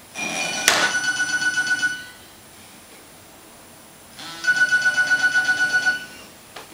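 A telephone ringing twice, each ring a rapid trilling warble about two seconds long with a pause of about two seconds between them. A sharp click sounds during the first ring.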